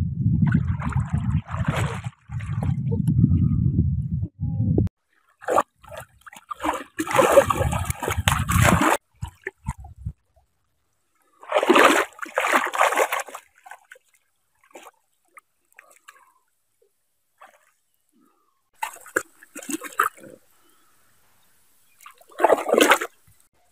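Shallow muddy water splashing in several short bursts as hands grab at a fish and it thrashes at the surface. A low rumble runs for the first five seconds and then stops suddenly.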